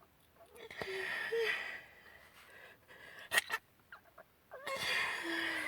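A person's breath catching in two long, hissing gasps as an allergy sneeze builds, with two short sharp sounds in between.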